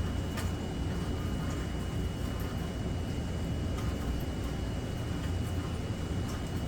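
Steady rainfall with a low, even rumble underneath, a few faint scattered ticks, and a faint steady high-pitched tone.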